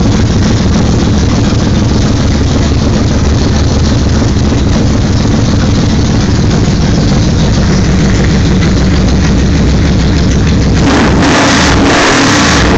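1997 Yamaha V-Max's V4 engine running loud through a UFO Street Pro aftermarket exhaust: a steady, heavy idle, then revved up about eleven seconds in.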